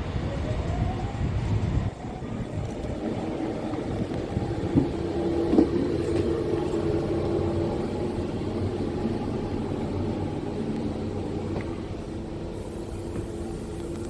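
Mat '64 electric multiple unit running on the line: a steady rumble with a rising whine at the start, settling into a steady motor hum, with a couple of knocks about five seconds in.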